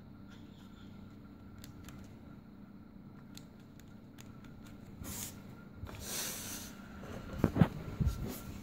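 Quiet handling sounds: small clicks and rubbing as a paper cigarette tube is worked onto the nozzle of a plastic cigarette injector, then a rustling scrape about five to six seconds in and a few dull thumps near the end, the loudest sounds.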